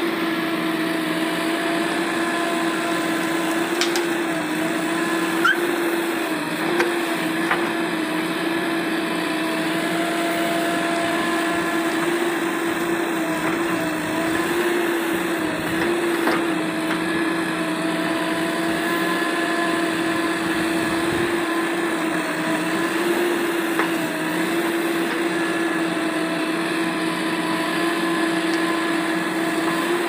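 JCB backhoe loader's diesel engine running steadily at working revs with a high, even whine, its pitch dipping slightly now and then as the backhoe digs, swings and dumps soil. A few short knocks come through, the loudest about five and a half seconds in.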